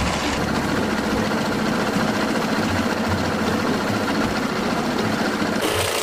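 A small handheld power tool running steadily, with a fast buzz and a steady hum.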